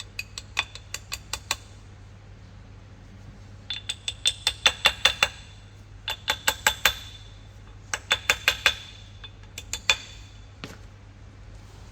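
Quick bursts of sharp metal-on-metal taps with a ringing note, five runs of several taps a second, as steel bolts and tools are worked into a dodgem car's drive wheel. A steady low hum runs underneath.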